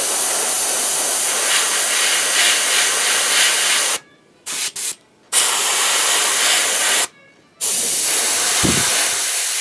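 Airbrush spraying black acrylic paint: a steady hiss of air and paint that cuts off about four seconds in, comes back as two short puffs, then runs again with another brief break about seven seconds in as the trigger is pressed and released. A brief low thump near the end.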